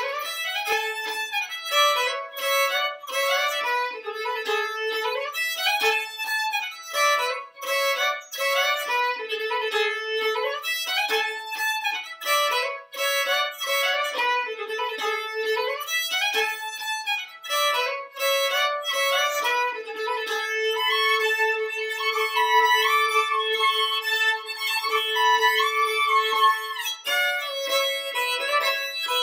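Solo violin playing a Swedish polska, bowed melody; for a stretch in the second half a lower note is held under the moving upper line as a drone.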